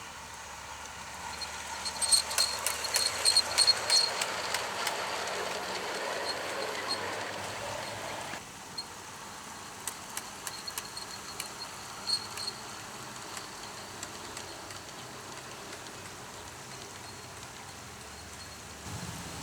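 G-scale garden railway train running past on outdoor track, wheels rolling with a rapid clatter of clicks over the rail joints, loudest a couple of seconds in, then fading. After a sudden drop about eight seconds in, only faint scattered ticks remain.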